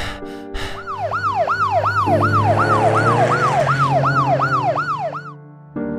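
Cartoon police car siren sounding in quick up-and-down sweeps, about two a second, then cutting off about a second before the end.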